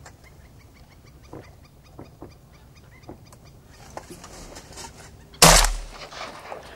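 A rapid string of short, high duck calls, then a single shotgun blast about five and a half seconds in, the loudest sound.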